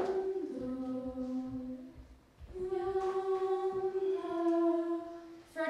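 A female voice singing unaccompanied in slow, long-held notes that step down in pitch. There is a short break for breath about two seconds in before the next phrase.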